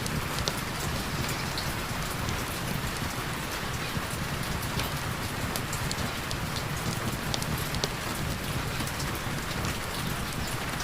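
Steady heavy rain falling on a surface: a constant hiss with many individual drops ticking sharply through it.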